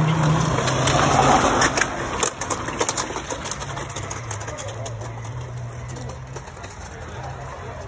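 A race car towing a caravan drives away, its engine note fading over the first second or so. A scatter of crackles follows about two seconds in, then a faint steady hum of engines further off around the track.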